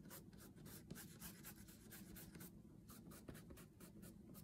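Faint, quick rubbing strokes of fingertips smudging oil pastel on paper, several strokes a second.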